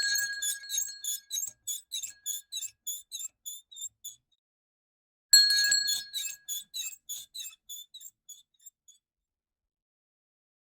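Small hanging door bell rung twice, a few seconds apart. Each ring opens with a bright metallic strike, then jingles about four times a second as it swings, dying away over about four seconds.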